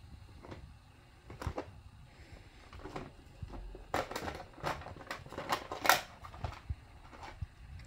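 Light plastic clicks, taps and rattles from handling a VHS cassette and its case, with a busier run of sharper clicks and knocks from about four to six seconds in.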